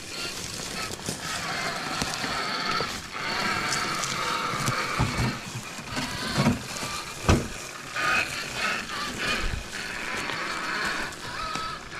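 Axial SCX6 Honcho RC crawler's electric motor and geared drivetrain whining, rising and falling as the throttle changes while it crawls, with a few low thumps of the truck knocking over the ground around the middle.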